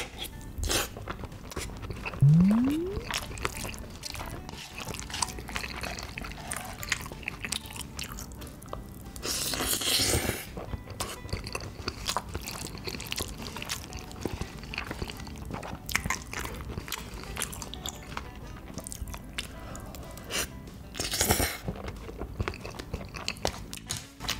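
Close-miked eating of black-bean-sauce instant noodles: chewing, small mouth and spoon clicks, and two long noisy slurps, one about ten seconds in and one near the end, over background music. A short rising tone sounds about two seconds in.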